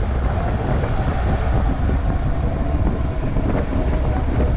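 A vehicle driving along a road: steady low engine and road rumble, with wind buffeting the microphone.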